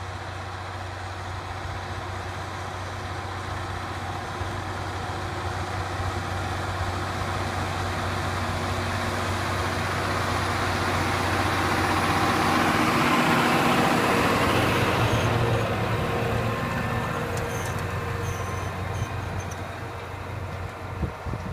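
John Deere 7430 Premium tractor's six-cylinder diesel engine running steadily under load as it pulls a disc cultivator through the soil, getting louder as it approaches, loudest about two-thirds through as it passes, then fading as it moves away. A few knocks sound near the end.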